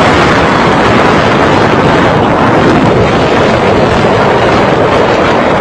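Steady, loud rush of wind on the microphone mixed with road and engine noise from a fast-moving vehicle.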